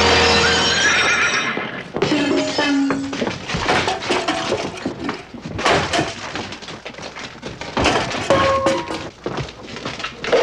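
A window's glass shattering with a horse whinnying, followed by a run of knocks and crashes.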